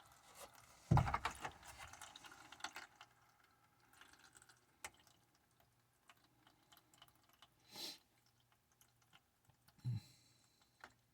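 Water dripping and trickling from the bleeder port of a drained-down main shutoff valve, in scattered faint drips and clicks. A knock about a second in is the loudest sound, and a second knock comes near the end.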